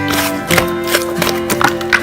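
Background music: the instrumental intro of a soft pop song with sustained notes, with a few short clicks scattered through it.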